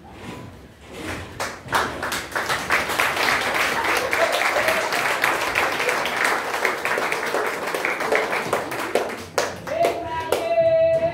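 Theatre audience applauding, building up over the first two seconds and then steady for several seconds. Near the end the applause fades as music begins with a held note.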